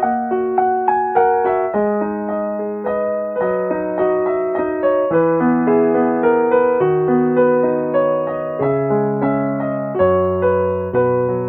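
Background piano music: a calm keyboard melody over changing chords, notes struck about twice a second, each fading away.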